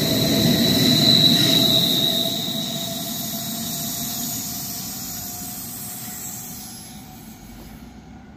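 SBB IC2000 double-deck coaches and their Re 460 electric locomotive rolling past on the rails, with a steady high-pitched whine over the wheel noise. It is loudest about a second in, then fades steadily as the train draws away.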